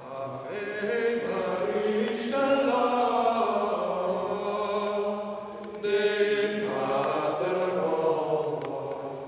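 A schola cantorum choir singing chant in slow, sustained phrases, with short breaks about two and six seconds in.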